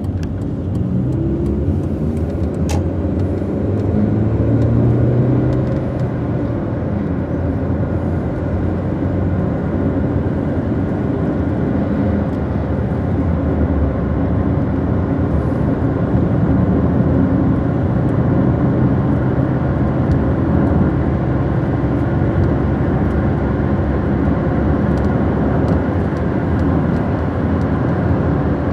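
Car engine and road noise heard from inside the moving car: the engine note climbs as the car accelerates over the first few seconds, then holds steady at cruising speed.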